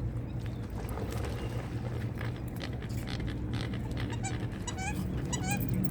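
American coots calling: short pitched calls come in quick pairs from about four seconds in, over scattered sharp ticks and splashes from the fighting birds and a steady low rumble.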